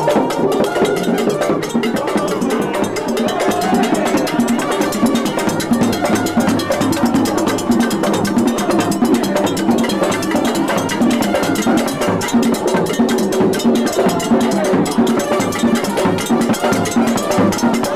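Cuban conga comparsa percussion playing in the street: large wooden bass drums and other percussion, cowbell among it, beat a steady, driving dance rhythm.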